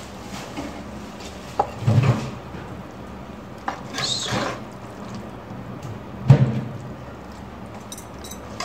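Kitchenware being handled: a few separate knocks and thumps, the loudest near the end, and a brief rustle a little before the middle, over a steady low hum.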